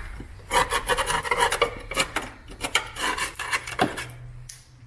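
Scraping and picking at thick underseal and rusted sheet metal under a car's sill and wheel arch: a quick run of irregular rasping scrapes that eases off near the end.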